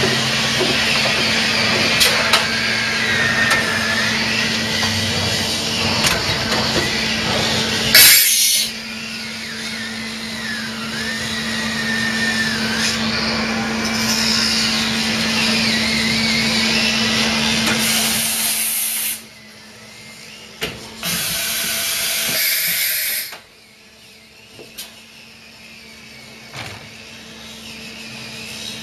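A 1988 Mori Seiki MH50 horizontal machining centre cutting metal under coolant: a steady hum with a wavering high whine and a spray-like hiss. A brief loud hiss comes about eight seconds in. Near the end the sound drops sharply, comes back briefly, then falls away again.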